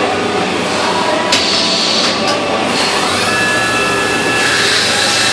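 Flood coolant on a Mazak 510C vertical machining center spraying from the nozzles around the spindle onto the table and vises, a steady hiss and splash. A click comes about a second in. A machine whine rises about three seconds in and then holds steady.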